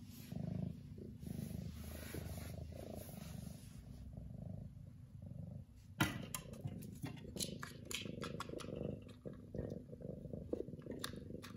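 Orange tabby domestic cat purring in a continuous low rumble. About halfway through, a sudden knock starts a run of sharp clicks and rustles over the purr.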